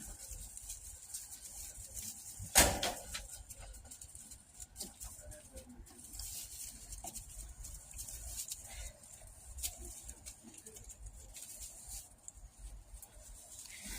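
Goat-farm activity: low rustling and scattered small knocks and clicks, with one loud sharp knock about two and a half seconds in.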